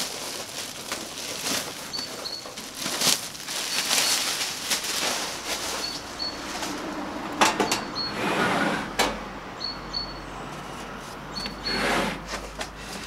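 Plastic packing film crinkling and rustling as it is pulled off a Tepro Toronto stainless-steel steak grill, with a few sharp knocks as the grill is handled.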